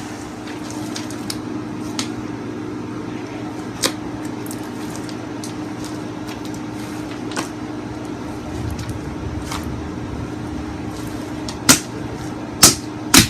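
Thick slime being handled, giving a few sharp clicking pops, the loudest three close together near the end, over a steady low electrical hum in the room.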